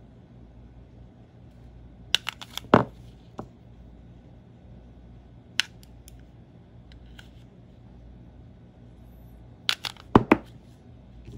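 AA batteries clicking and knocking against a plastic wireless mouse's battery compartment as they are handled in and out: a quick cluster of sharp clicks about two seconds in, a couple of single clicks after it, and another cluster near the end.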